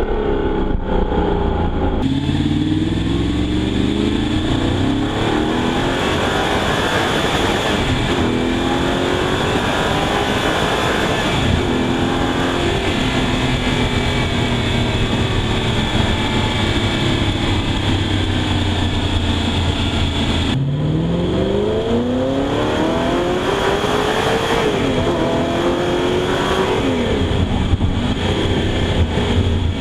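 Audi R8's 4.2-litre V8 accelerating and revving through the gears, its pitch climbing again and again and then dropping back. The sound changes abruptly about two seconds in and again about twenty seconds in.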